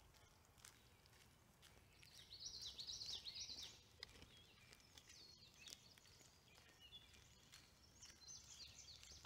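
Faint songbirds singing in quick, warbling phrases, loudest about two to four seconds in and again near the end, over a faint low hush.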